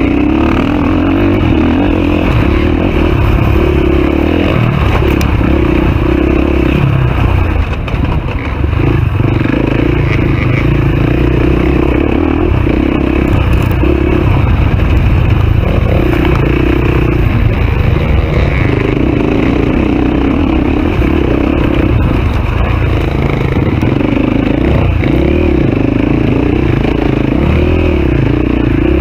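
Dirt bike engine running hard close to the microphone, its note dropping away and coming back every few seconds as the throttle is closed and opened again.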